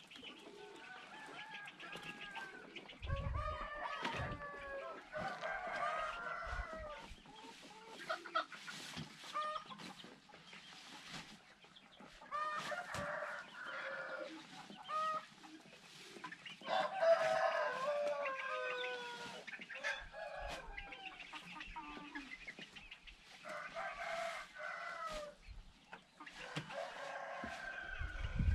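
Roosters crowing again and again, one drawn-out crow after another, with hens clucking in between.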